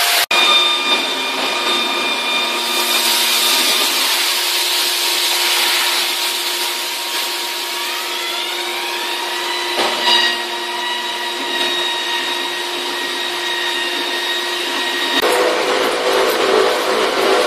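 Factory spray-washing machine running, with water spraying: a steady mechanical hum and hiss carrying several whines. One whine rises in pitch about eight seconds in and then holds, and the sound changes abruptly near the end.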